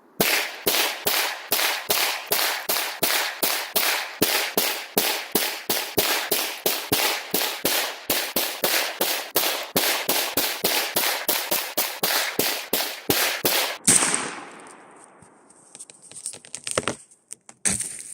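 Saiga 12 semi-automatic shotgun fired in a long rapid string, about three shots a second for some fourteen seconds. The string ends in a louder bang followed by a long crackling crash that fades over about two seconds.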